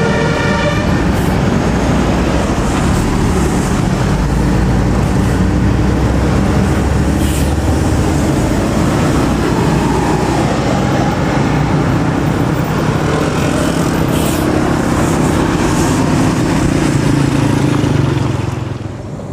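Large bus running close by, its engine and tyre noise loud and steady, easing off near the end. The last notes of a telolet multi-tone musical horn tune end about a second in.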